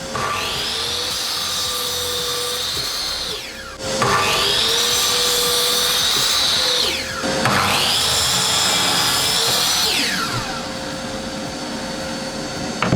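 A handheld power tool motor run three times, each time spinning up to a steady high whine for about three seconds and then winding down, over quiet background music.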